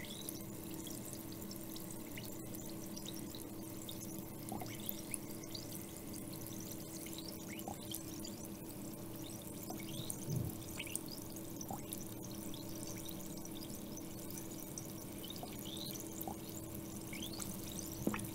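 Faint fizzing and bubbling of a dark cleaning liquid as it works on limescale on faucet parts soaking in a plastic tub: scattered tiny plinks and pops of bubbles over a steady low hum, with one brief lower, louder sound about ten seconds in.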